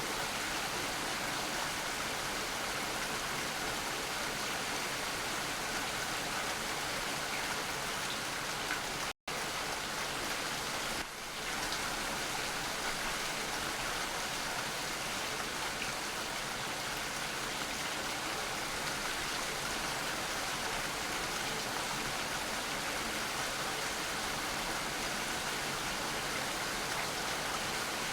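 Steady rain falling, an even hiss of drops throughout. About nine seconds in, the sound cuts out to silence for a split second and returns, a splice in the recording.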